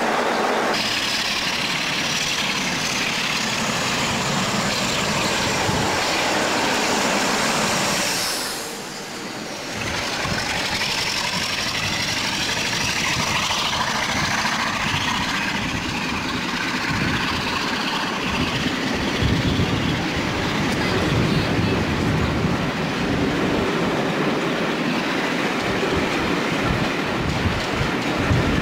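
Train noise with a thin high whine, cut short about nine seconds in. Then a locomotive-hauled passenger train's coaches roll past with a steady rumble and the clatter of wheels on the rails.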